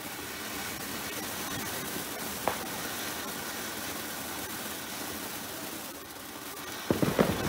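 Ground fireworks fountain hissing steadily as it sprays sparks, with a single sharp crack about two and a half seconds in and a quick cluster of bangs near the end.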